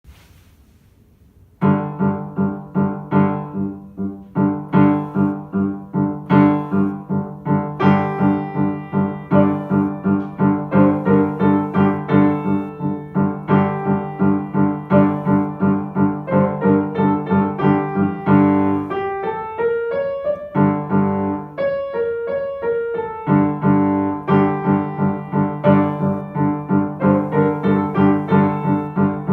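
A piano playing a beginner-level piece, starting about a second and a half in with a steady run of struck notes over held low notes. Shortly after the middle, the low notes drop out for a few seconds while higher notes carry on, then the low notes return.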